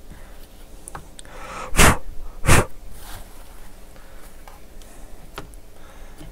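Two short, loud puffs of a person's breath, close to the microphone, about two seconds in, with a few faint small clicks around them.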